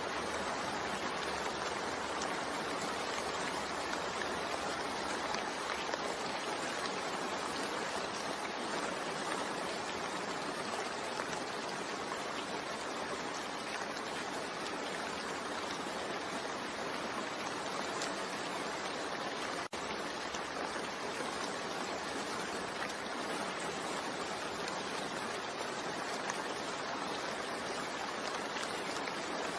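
Steady rain falling, an even, unbroken hiss that cuts out for an instant about twenty seconds in.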